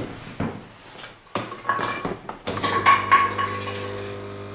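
A few sharp clinks and knocks, then from about halfway a steady low-pitched hum with several overtones that slowly fades over about two seconds.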